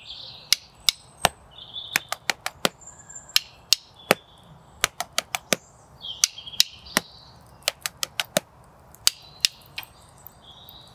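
Wooden sticks tapped against a tree trunk and clicked together, playing a repeating rhythm of sharp wooden knocks. Each phrase is about three evenly spaced knocks followed by a quick run of clicks, and it comes round every three to four seconds.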